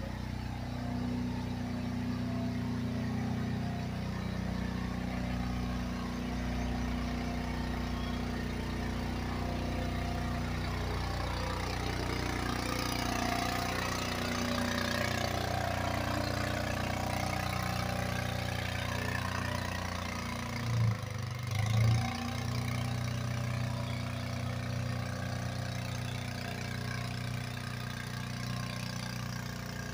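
Small engine of a truck-mounted power sprayer running steadily, driving the pump that feeds the disinfectant hose. Spray hisses from the nozzle in the middle stretch, and two brief low thumps come about two-thirds of the way through.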